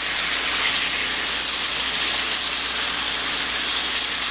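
Ground meat sizzling steadily on a George Foreman electric grill.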